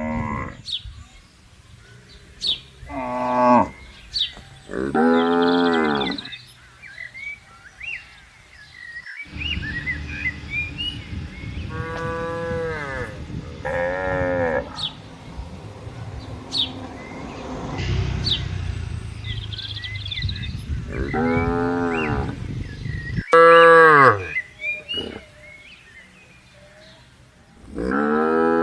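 Cows mooing again and again: about eight separate calls, each a second or so long, some falling in pitch at the end. A low steady rumble runs under the calls through the middle of the stretch, and short high chirps come between them.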